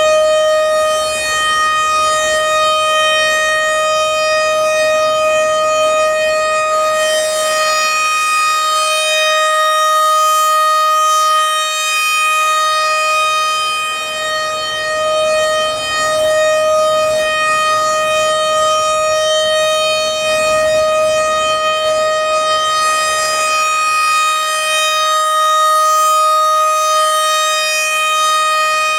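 A.C.A. Penetrator PN-20 outdoor warning siren (7.5 HP motor, nine-port rotor) sounding its steady alert tone. It holds one unchanging pitch with overtones, and its loudness swells and fades slightly as the rotating horn turns.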